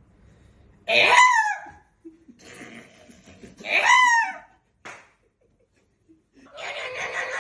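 Meme sound-effect clips played one after another: two identical short pitched vocal calls that rise then fall, about three seconds apart, then laughter starting near the end.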